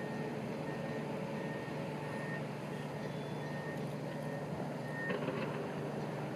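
Zephir road-rail shunter moving a Class 801 Azuma coach: its warning beeper gives short, high beeps about every two-thirds of a second over a steady engine hum. A brief clatter about five seconds in.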